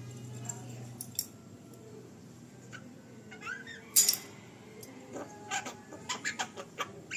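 Javan myna (jalak kebo) calling: a short rising whistle, then one loud harsh squawk about four seconds in, followed by a rapid run of sharp clicking chirps.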